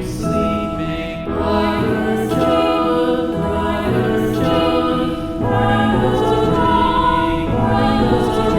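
Slow, calm background music of long held chords that change every second or two, with choir-like voices.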